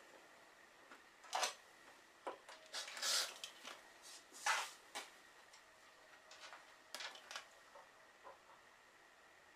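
Clear acrylic quilting ruler and cotton fabric being handled on a cutting mat: a few faint, scattered scrapes, slides and light taps as the ruler is lifted and set down again and the fabric block is turned, the longest about three seconds in.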